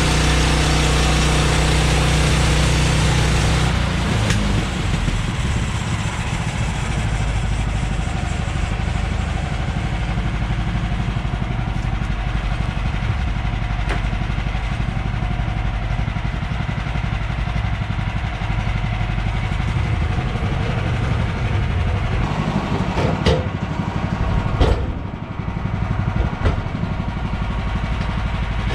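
An engine running steadily; about three and a half seconds in it drops to a lower, quieter run, and a few sharp knocks come near the end.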